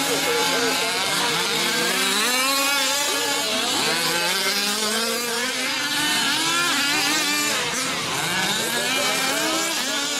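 A pack of 5th-scale RC off-road trucks' small two-stroke gasoline engines racing, their overlapping buzzing pitches rising and falling as the throttles open and close.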